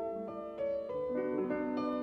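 Classical solo piano music, a melody of held notes over chords.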